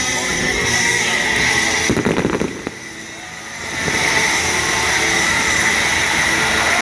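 Fireworks display: a steady hiss, with a quick cluster of sharp cracks about two seconds in.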